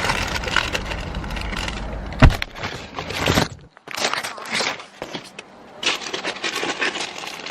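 Low car rumble with a sharp knock about two seconds in. The rumble stops soon after, then comes a run of clicks and rattles as belongings are handled, with keys jangling.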